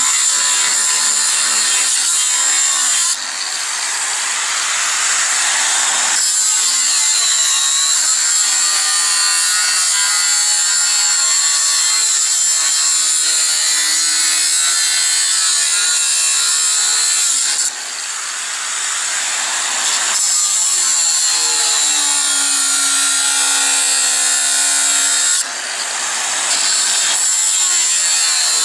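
Angle grinder cutting 6 mm steel plate, running loud and steady with a high whine. It dips briefly three times, about three, eighteen and twenty-five seconds in, and builds back up each time.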